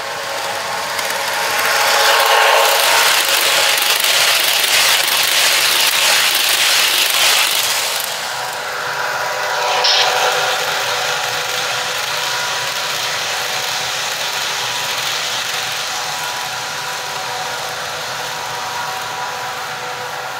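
HO-scale model GG1 electric locomotive and its train running fast on sectional track, wheels clattering over the rail joints with a steady hum beneath. The clatter is loudest for several seconds in the first half as the train nears and passes, then settles.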